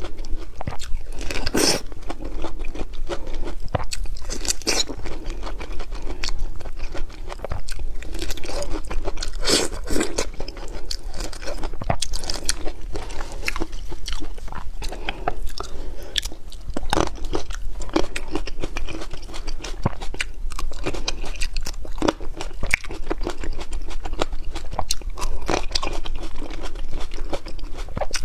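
Close-miked biting and chewing of a crisp red-skinned pear: repeated crunching bites and chews at an irregular pace, sped up.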